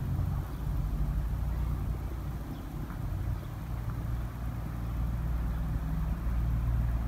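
Steady low rumble with slowly swelling and easing loudness.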